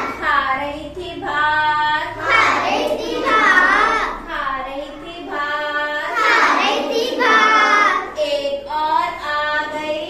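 A group of young children singing a Hindi counting rhyme together in unison. The song runs in phrases of long held notes.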